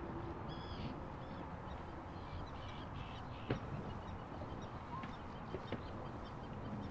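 Birds calling: a series of short, harsh calls, clearest in the first second and again between about two and three seconds in, over a steady low rumble. A single sharp click comes about three and a half seconds in.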